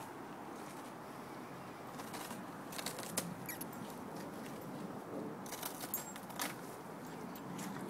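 Chocolate Labradors gnawing and tugging at a stale baguette, with rustling and scattered sharp crunches of the hard crust, the loudest about three seconds in and a few more around six seconds in.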